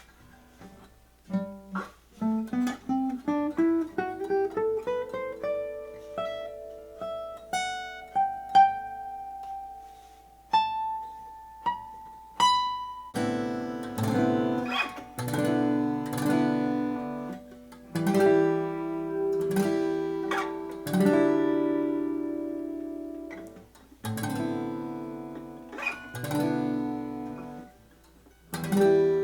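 1919 Martin 0-18 small-bodied acoustic guitar played solo: a climbing run of single plucked notes, a few high notes left to ring, then fuller ringing chords picked with short pauses between phrases.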